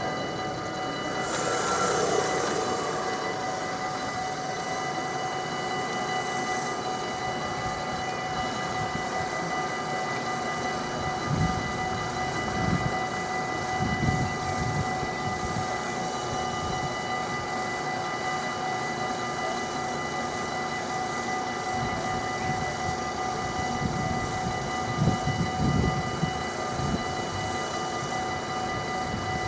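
Level-crossing warning bells ringing steadily while the barriers are down, with low rumbles of waiting and passing road traffic a couple of times.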